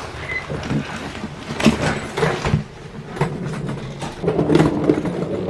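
A suitcase being pulled out and handled on a wooden floor: a run of knocks, bumps and rustling, loudest about a second and a half in and again near the end.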